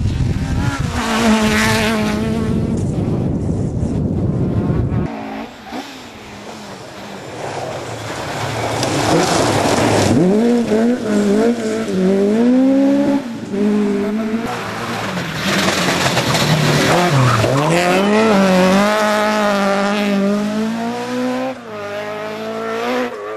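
Ford Escort Mk2 rally car engine revving hard, its pitch climbing and dropping again and again as it changes gear, with wind buffeting low underneath for the first few seconds.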